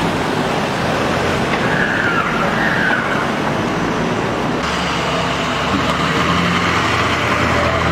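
Armoured military jeeps driving past close by, a steady engine and tyre rumble that grows heavier about halfway through as one passes nearer.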